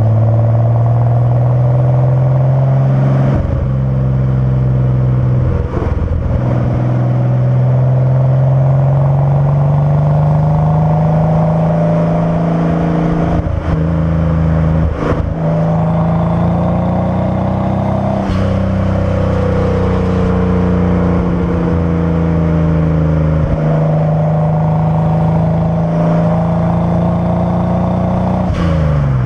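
Datsun 240Z's inline-six engine and exhaust running under way. The note climbs slowly and then drops back abruptly several times, with a short break in the sound at each drop, as at gear changes.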